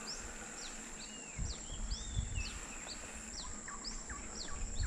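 Birds calling with many short, quick whistled chirps that sweep up and down, over a steady high-pitched insect drone. From about a second and a half in, an uneven low rumble joins them.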